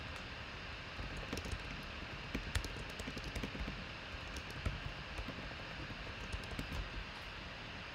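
Irregular light clicks of typing on a computer keyboard, starting about a second in and stopping near the end, over a steady background hiss.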